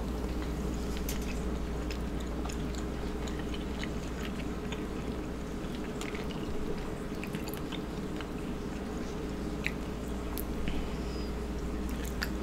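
Close-miked chewing of seafood: small wet mouth clicks and smacks scattered through, over a steady low hum.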